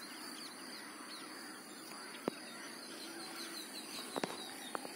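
Faint outdoor ambience of birds calling, with a run of quick repeated high chirps and a couple of sharp little clicks.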